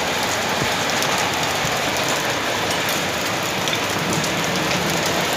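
Hail and rain falling hard on a concrete rooftop: a dense, steady hiss peppered with many small sharp ticks of hailstones striking.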